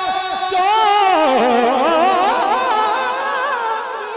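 Naat being sung: one long melismatic vocal line with wavering, ornamented held notes and no clear words, through a PA system.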